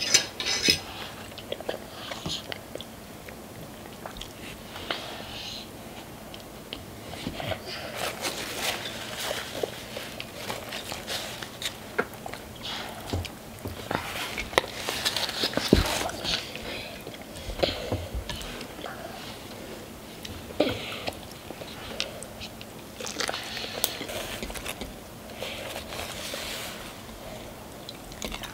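Close-miked eating: instant noodles slurped and chewed and roasted chicken wings bitten, with many wet smacking and clicking mouth sounds and a few hissy slurps.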